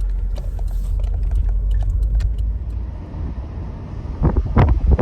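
Car driving: a steady low rumble of engine and road noise, with a few sharp knocks near the end.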